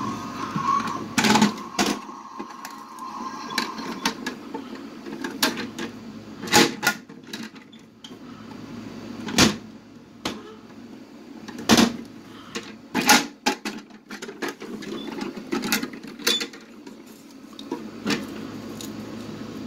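Irregular sharp knocks and clacks, one every one to three seconds, over a low hum, with a faint steady whine in the first few seconds.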